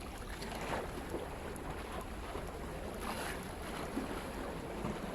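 Wind buffeting the microphone over the steady wash of seawater, with a couple of faint brief sounds about a second in and about three seconds in.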